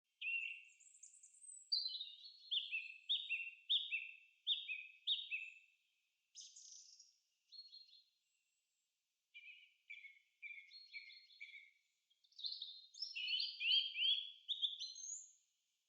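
Songbird singing: phrases of quick, repeated high notes that each slide downward, broken by short silent pauses.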